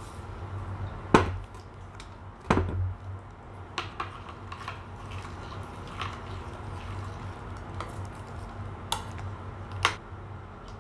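A spoon clinking and knocking against a stainless steel pot as curry is stirred, a series of sharp clicks with the loudest about a second in and another at two and a half seconds. A steady low hum runs underneath.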